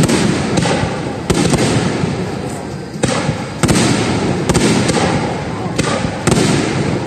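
Aerial firework shells bursting in quick succession: sharp bangs every half second to a second or so, with a continuous low rumble of echoing booms between them.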